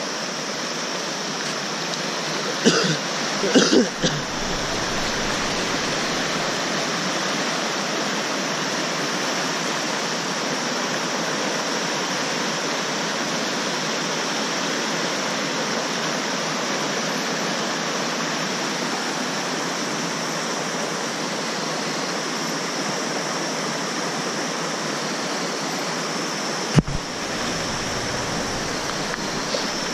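Fast mountain river rushing over rocks and rapids, a steady loud rush of water. A few brief knocks come about three seconds in, and a single sharp click near the end.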